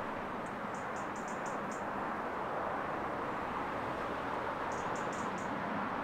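Steady wash of town traffic, with a small bird chirping in two quick runs of short, very high notes: about seven in the first two seconds and about four more near the end.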